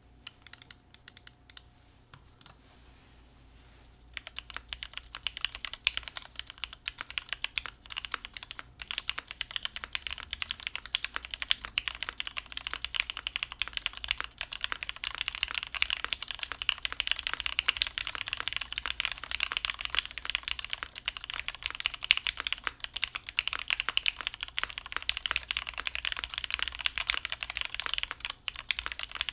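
Typing on a 60% mechanical keyboard: a gummy O-ring gasket-mounted Monokei Kei with an aluminium full plate, lubed Gateron Ink V2 linear switches and GMK keycaps. A few scattered keystrokes come first, then steady, fast continuous typing from about four seconds in.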